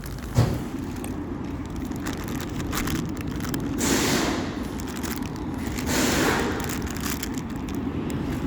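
Handling noise: rustling and scraping of parts and their boxes, with a single knock about half a second in and two louder rustling swells later on.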